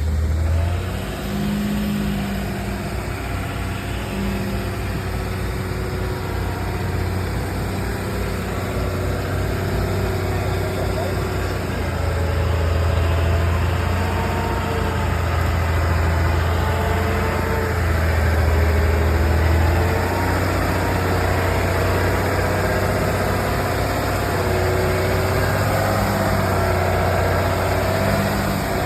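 Vehicle engine running steadily, its pitch drifting slightly up and down.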